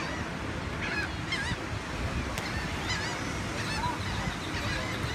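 Gulls calling again and again, short curved cries overlapping, over the steady rush of surf.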